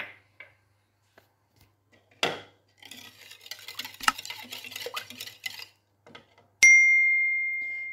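A wire whisk clacks against the bowl about two seconds in, then stirs and clicks around the bowl through a thin milk, egg and yeast mixture for about three seconds. Near the end a single sharp, bright ding rings out and fades slowly.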